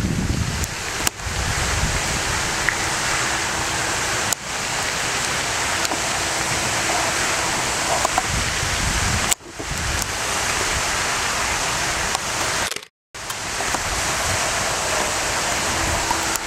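A steady, even rushing noise, broken by a few brief dropouts and one short silent gap about thirteen seconds in.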